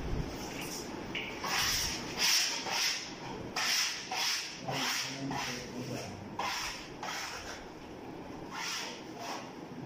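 Freshly hung wallpaper being rubbed and smoothed flat against the wall by hand. It comes as a series of about a dozen short rubbing strokes, closest together in the first seven seconds, with a couple more near the end.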